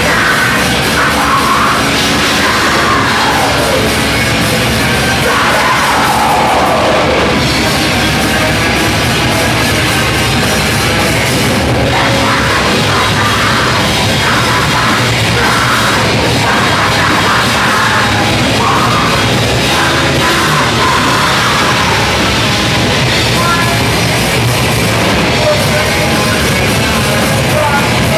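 Loud heavy rock music, dense and continuous, with a few sliding, falling pitches in the first several seconds.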